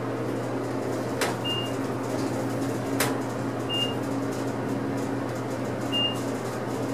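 U.S. Elevator traction elevator car descending: a steady hum in the cab, with a short high beep about every two seconds as the car passes each floor, and two sharp clicks in the first half.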